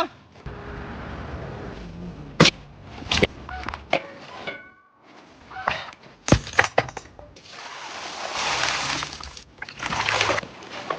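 Several sharp knocks and cracks, with longer stretches of rushing, rustling noise between them.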